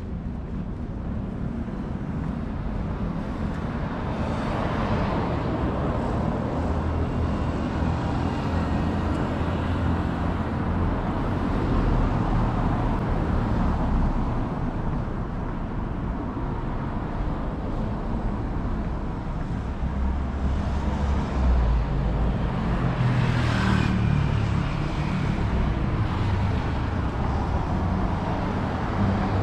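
Road traffic on a busy city street: a steady rumble of cars passing, rising and easing as they go by, with one louder pass a little over two-thirds of the way through.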